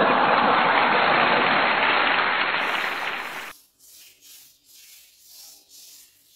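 Crowd laughing and cheering that cuts off abruptly about three and a half seconds in, then faint, rhythmic rubbing strokes, about two a second, of wet coffee grounds being scrubbed back and forth on the skin of an arm.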